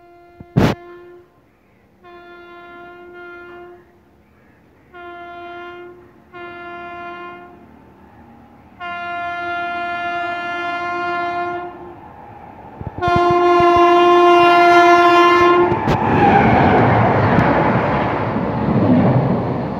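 An express train's locomotive horn sounding five single-pitched blasts as the train approaches at speed, each louder than the last, the last two long. About sixteen seconds in, the train runs past close by, with a loud, steady rush of wheel and coach noise; a sharp click sounds just after the start.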